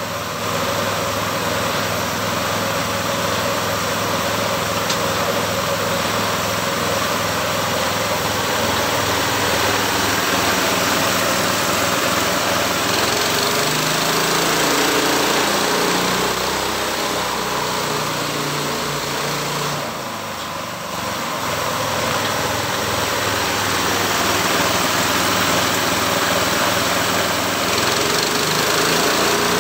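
Engine-driven homemade sawmill running steadily, with a strong hiss over the engine note. Its pitch wavers through the middle stretch, and the level dips briefly about twenty seconds in.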